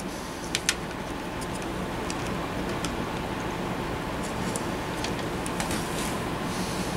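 Light clicks and faint ticks from a circuit board and its wiring being handled by hand inside a B&K 747B tube tester, two sharper clicks about half a second in, over a steady background hum.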